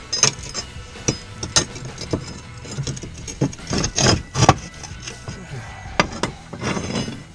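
A roofing shingle being shoved and worked up under the row above. It scrapes and gives a string of sharp knocks and taps, with longer scraping pushes in the middle and near the end.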